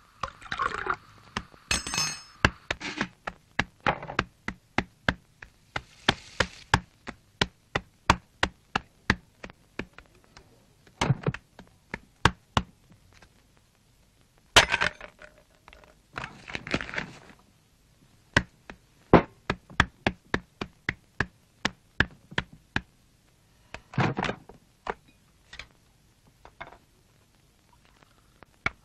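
Sound-effect track of steady ticking, about two sharp ticks a second like a clock, broken by a few louder thuds and a brief ringing clink of crockery.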